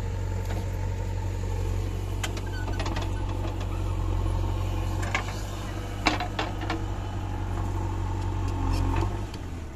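JCB 3DX backhoe loader's diesel engine running steadily under load as it digs and dumps sand, with a few sharp knocks about two, five and six seconds in. The engine sound drops away near the end.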